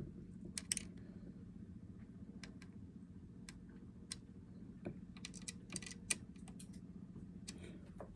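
Scattered small clicks and taps of hands and a small tool working on the internals of an open laptop, with a cluster of quick clicks past the middle, over a steady low hum.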